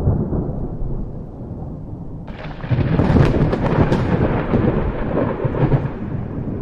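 Thunder: a low rumble, then a little over two seconds in a sudden crackling crack that rolls on into loud, rumbling thunder.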